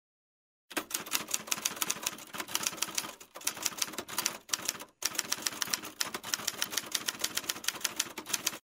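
Typewriter keys typing rapidly, several keystrokes a second, as a sound effect for text being typed out. It starts after a short silence, pauses briefly twice in the middle, and stops just before the end.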